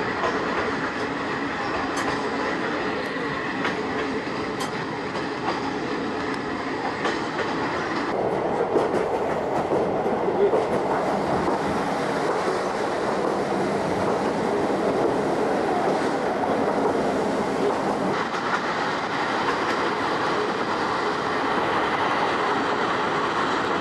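Old-type passenger coach running on jointed track: rumble of the running gear with the clickety-clack of wheels over the rail joints. The sound shifts abruptly about eight seconds in and again near eighteen seconds.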